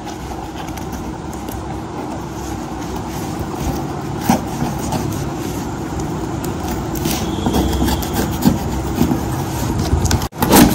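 A knife cutting and tearing into the paper and cardboard wrapping of a parcel, with a few short scrapes and knocks, over a steady rumbling background noise.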